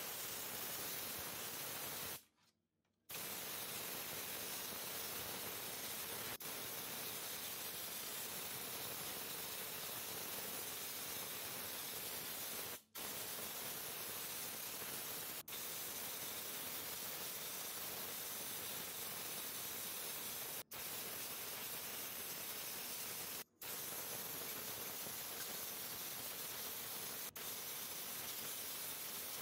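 Pressure washer spray hissing steadily as the jet hits plastic parts. It cuts out for about a second near the start and drops out for an instant a few more times.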